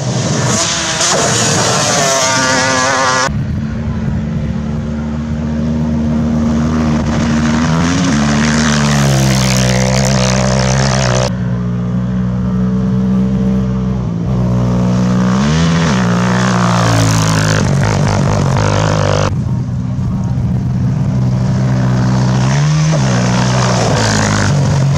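Racing quad engines running hard at high revs, steady in pitch except for a brief rise and fall three times.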